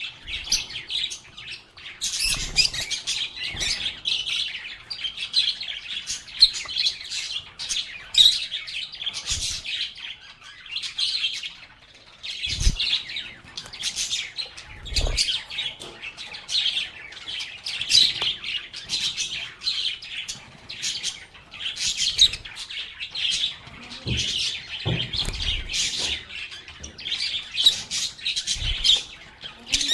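Lovebirds chirping and chattering continuously in a dense stream of short high chirps, with a few soft low thumps.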